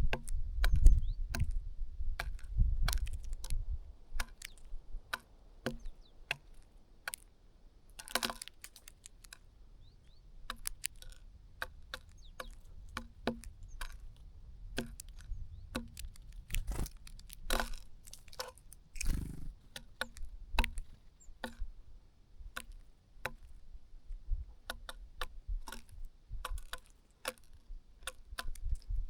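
Small birds pecking and tapping at food close to the microphone: irregular sharp taps and clicks, a few a second, with a low rumble in the first few seconds.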